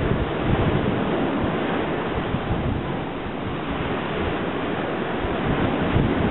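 Wind buffeting the microphone in uneven low gusts over a steady hiss of surf breaking on the beach.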